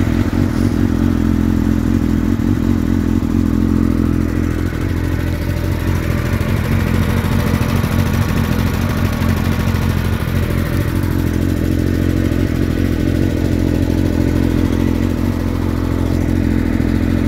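Mini bike's small engine idling steadily.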